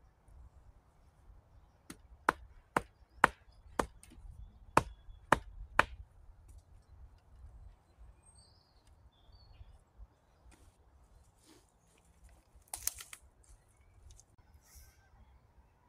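Seven sharp knocks of wood being struck, about two a second, as a forked wooden stake is pounded into the ground, then one more clattering knock near the end.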